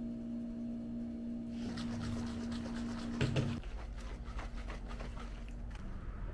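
Protein powder being spooned into a stainless steel shaker cup, and the cup then shaken. A run of clicks and rattles starts about a second and a half in, with a louder knock a little past the middle, over a steady hum that weakens soon after.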